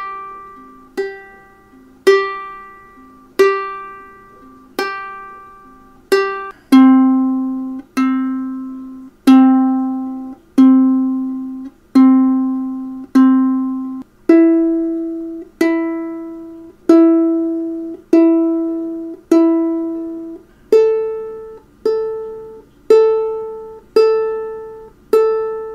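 Ukulele tuning reference notes: single open strings plucked one at a time, each note left to ring and fade, about six plucks per string a little over a second apart. The strings come in the order G, C, E, A, the first note high, the second the lowest, then rising to the A, the highest.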